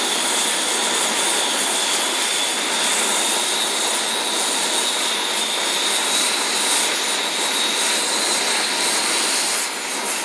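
Oxy-acetylene torch flame hissing steadily as it heats a copper pipe joint to steel for brazing, the copper not yet hot enough for the silver solder to flow. A faint, steady high whistle runs under the hiss.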